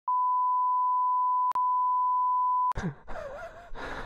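Censor bleep: a steady 1 kHz beep tone edited over the sound for about two and a half seconds, with a brief click partway through where two bleeps join. Scuffing and breathing sounds follow near the end.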